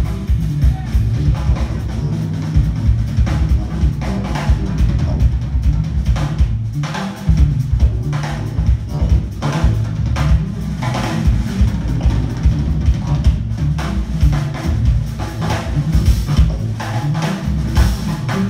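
Jazz-fusion band playing live, with the drum kit's kick, snare and rim hits loudest over a heavy bass line, heard from among the audience.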